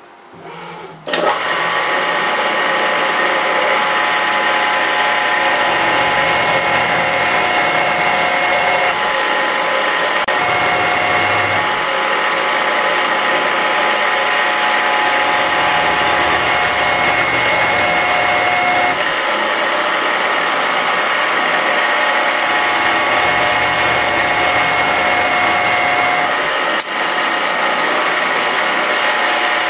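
CNC milling machine's spindle turning a hardenable tool-steel blank while a fixed cutter turns grooves into it, the mill working as a lathe. A loud, steady machine whine with a hiss starts abruptly about a second in, and a lower rumble comes and goes every few seconds.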